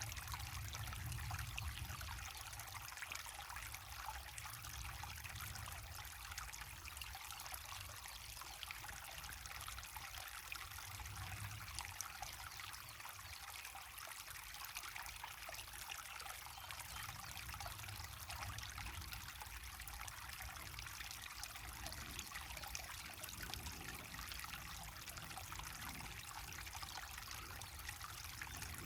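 Water pouring over a small waterfall into a river, a steady splashing rush with a low rumble beneath it.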